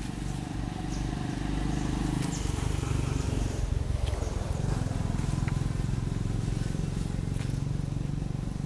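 A low, steady engine hum that grows louder about two and a half seconds in, with a few light clicks and rustles over it.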